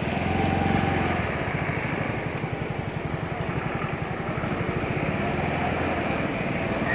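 An engine running steadily with a rapid, even chugging beat.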